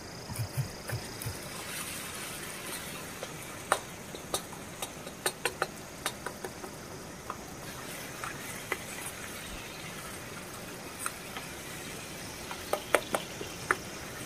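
Vegetables sizzling in an aluminium pan on a portable gas-cylinder burner, with a spoon scraping and clinking against the pan as they are stirred: a steady hiss with scattered sharp clicks, a cluster of louder ones near the end.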